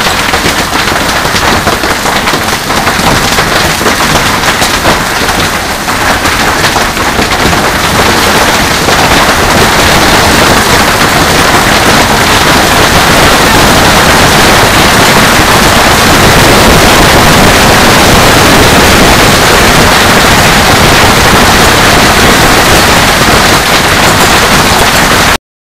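Hailstones pelting down in a loud, dense clatter of countless impacts. It grows heavier about eight seconds in and holds steady until it cuts off suddenly near the end.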